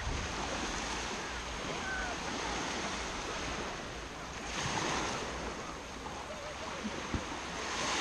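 Small Baltic Sea waves washing onto a sandy shore in a steady surf, which swells about halfway through and again at the end. A single short tap sounds about seven seconds in.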